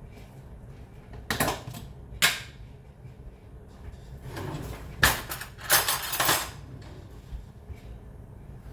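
Kitchen handling noises: a few sharp knocks and clatters, with a longer rustle or scrape in the middle, over a low steady hum.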